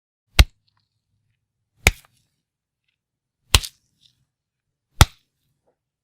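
Four separate fight-punch sound effects, sharp hits about a second and a half apart with silence between them; the third has a quick double hit.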